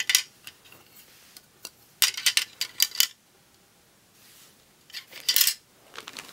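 Black plastic American Girl of Today doll clothes hangers clacking against one another as they are handled: a click at the start, a quick cluster of clacks about two seconds in, and another short clatter near the end as they are moved away.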